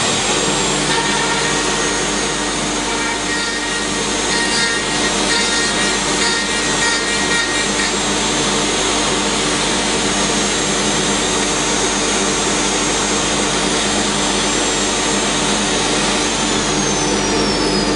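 Router on a Torque Workcentre running at full speed and cutting a recess into a wooden board at final depth, with a dust collector running alongside: a steady whine over a hiss. Near the end a high whine falls in pitch.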